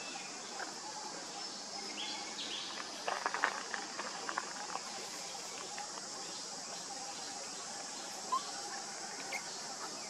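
Forest ambience: a steady high insect drone with a few scattered short chirps, and a brief cluster of faint clicks or rustles about three seconds in.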